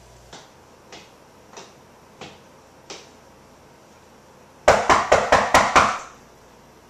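Someone knocking on a door, about seven quick, loud raps in just over a second, after a few faint, evenly spaced taps.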